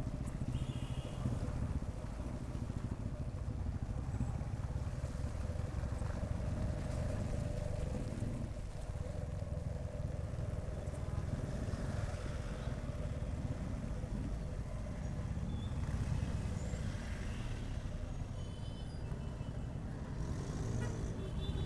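Motorcycle engine running steadily as the bike rides along, under a dense low rumble of wind and road noise on the bike-mounted camera. A few short, higher tones sound faintly near the end.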